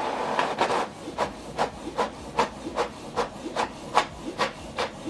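Canon PIXMA TR7650 inkjet printer printing a page. A feed noise in the first second or so, then the print head sweeping back and forth in short, even swishes about two and a half times a second.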